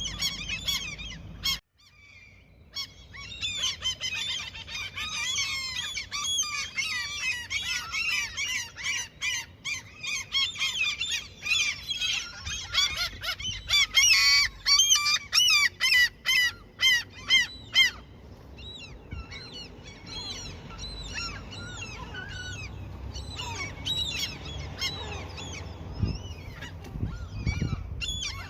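A flock of gulls calling over one another in a dense chorus of overlapping cries. From about 12 to 18 seconds in, one run of loud, rapidly repeated calls stands out, and then the calling thins.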